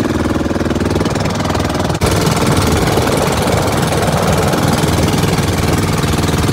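Bangka outrigger boat's engine running steadily under way with a fast hammering beat, over a hiss of wind and water rushing past the hull. The sound breaks off and jumps about two seconds in.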